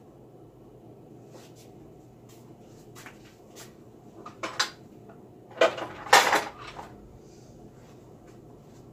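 Kitchen clatter of dishes and utensils being handled: a few clinks about halfway through, then a louder burst of knocks and clinks a second later, over a faint steady hum.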